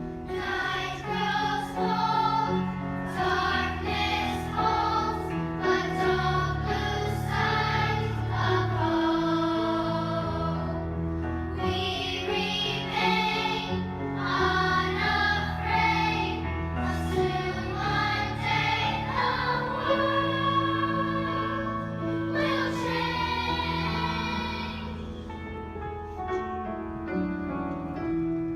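Children's choir singing a slow, peaceful piece with piano accompaniment, sustained notes over steady low piano chords; it grows softer near the end.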